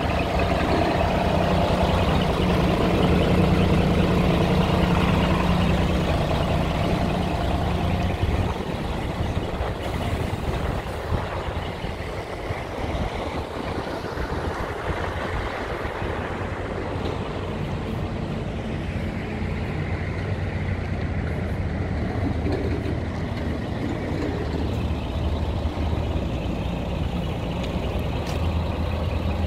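Scania R340 truck's diesel engine idling steadily. It is louder for the first eight seconds or so, then quieter, and it grows stronger again near the end.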